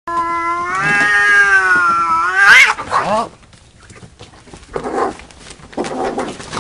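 Domestic cats caterwauling in a standoff: one long, drawn-out yowl that rises sharply into a screech about two and a half seconds in. The cats then clash, with two shorter harsh squalls about five and six seconds in.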